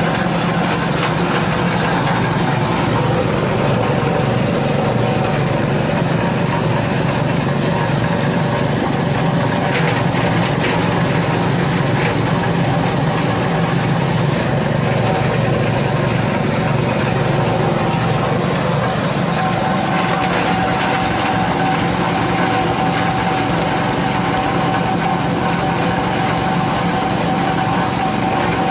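Coconut husk grinding machine (cocopeat and cocofiber mill) running steadily, its motor and rotor giving a continuous hum, with a steady higher whine that grows clearer about two-thirds of the way through.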